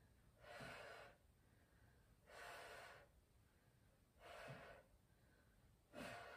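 A woman's breathing during a Pilates ab curl: four faint, short breaths, one about every two seconds, in time with the curl and leg float.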